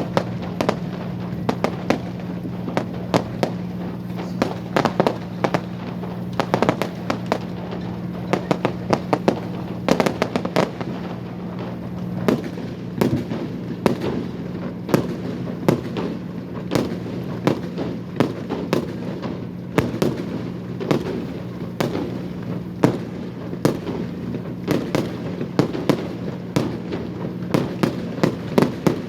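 Fireworks display going off: a dense, irregular run of sharp bangs and pops, several a second, over a steady low hum.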